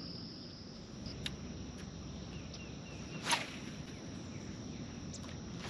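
Steady high-pitched drone of insects, with a few faint clicks and one short swish about three seconds in.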